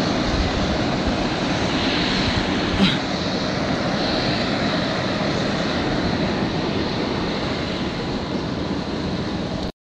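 Steam venting from a near-boiling (about 98 °C) sulfur hot-spring pool: a steady rushing noise, with a single tap about three seconds in. It cuts off suddenly near the end.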